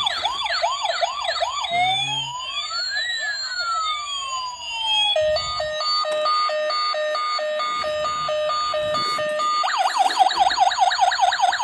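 Toy police car's electronic siren cycling through its patterns. It begins with a fast repeated rising yelp, changes to slow wailing sweeps up and down about two seconds in, then to a stepped two-tone hi-lo about five seconds in, and returns to the fast yelp near the end.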